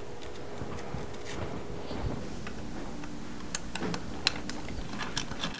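Light metallic clicks and ticks of an Allen key turning a small screw in the metal operating end of a casket lowering device, a few sharp clicks in the second half.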